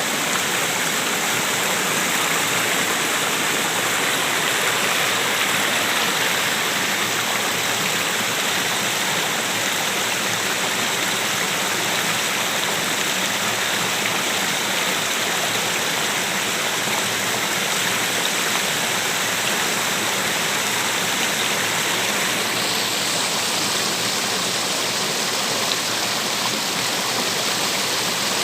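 Waterfall and stream rushing steadily and loudly, an even wash of falling water.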